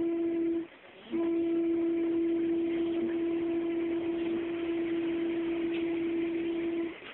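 A person humming one long, steady note, with two short breaks for breath: one about a second in and one near the end.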